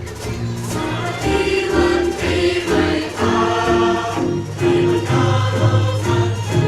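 Live band music with a group of people singing along together in chorus.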